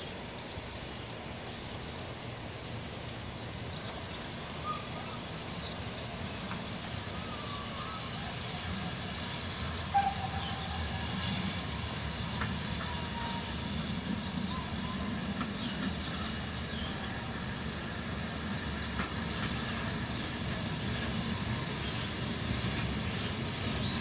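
BR Standard Class 4MT 4-6-0 steam locomotive approaching in the distance: a steady low rumble that grows slowly louder. Small birds chirp over it in the first half, and there is one brief sharp sound about ten seconds in.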